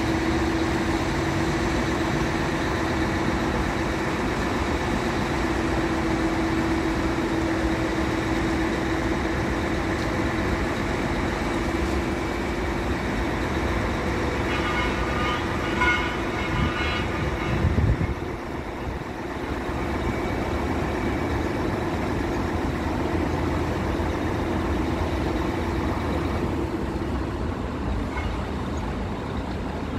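Heavy diesel engines of construction vehicles, concrete mixer trucks and a mobile crane, running steadily with a constant low hum. About halfway through, a brief higher-pitched sound and a short louder swell rise above it.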